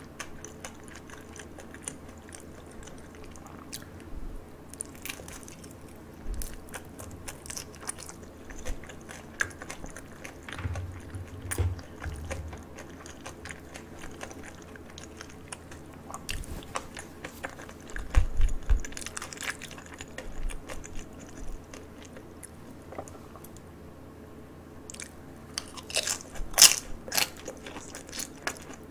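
Close-miked chewing of crisp fried food, wet mouth sounds with scattered small crunches and clicks. Louder crunchy bites come a little past halfway and again near the end.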